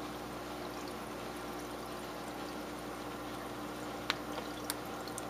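Steady trickle of aquarium water pouring into a tank, with a low steady hum. About four seconds in come two sharp clicks half a second apart, then a fainter one: bala sharks clicking as they feed.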